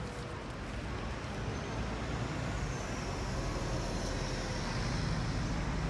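Road traffic noise: a steady rumble of passing vehicles that grows slightly louder, with a faint high whine rising and falling partway through.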